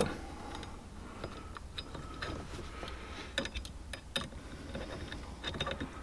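Scattered light metallic clicks and taps as a steering-wheel hub adapter and its screws are handled and fitted onto the steering column.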